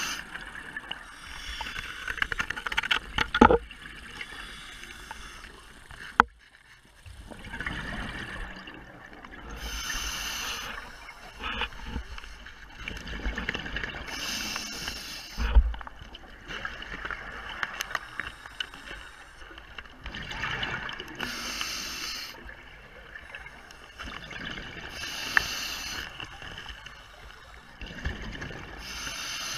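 Scuba diver breathing through a regulator underwater: exhaled bubbles rush out in hissing bursts about every five seconds over a low rumble. A few sharp knocks stand out, the loudest about three and a half, six and fifteen seconds in.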